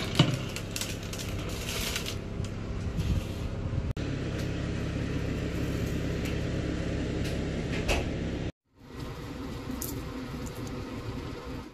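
Steady hum of a kitchen appliance's motor or fan, with a sharp click and clattering of the baking tray and parchment paper being handled in the first couple of seconds. The hum breaks off briefly about three-quarters of the way in, then resumes.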